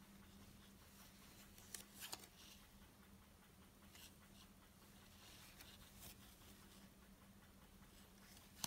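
Faint handling noise from cloth-gloved hands turning a watch: soft rustles and a few light clicks, the sharpest click right at the end, over a faint steady hum.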